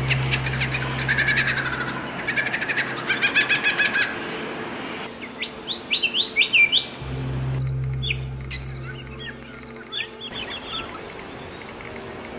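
Several different birds chirping and calling in quick, repeated notes, some sweeping up in pitch. The background changes abruptly a few times, about 5, 7 and 10 seconds in, as if separate recordings follow one another. A low steady hum runs under some stretches.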